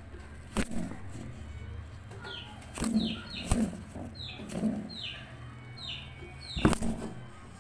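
Roman pigeon defending its nest: three sharp wing slaps, the last the loudest, with low coos in between. Short, high, falling chirps repeat through the middle.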